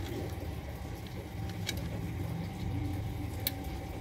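Steady low background rumble with two sharp small metallic clicks, about one and a half and three and a half seconds in, as a small cable-end fitting is handled and fitted onto the fuel-lid release cable.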